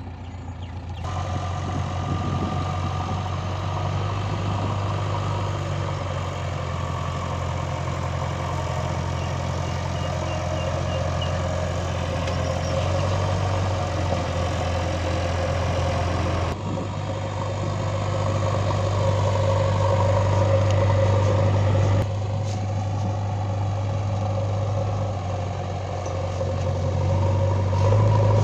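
JCB 3DX backhoe loader's diesel engine running steadily as the machine works through mud, a constant low hum. The sound jumps abruptly a few times, about a second in, midway and again a little later.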